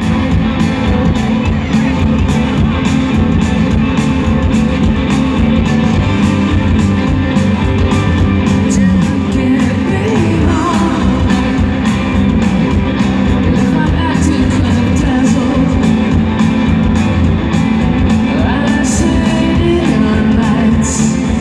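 Live rock band playing: electric guitars, a steady drum beat and a lead singing voice, heard through the PA from among the audience.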